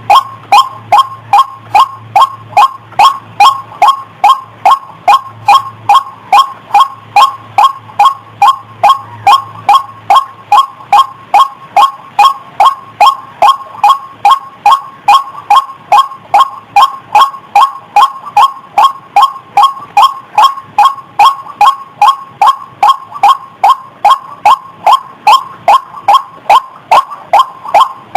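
Female white-breasted waterhen giving its repeated 'wak' call, short sharp notes about two a second in an unbroken series, as used in a lure recording to attract waterhens. A faint low hum runs under the first ten seconds or so.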